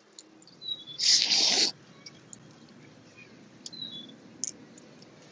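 Boiled crawfish being peeled by gloved hands, with small shell clicks and one loud, hissy slurp lasting under a second about a second in. Short chirping birds twice.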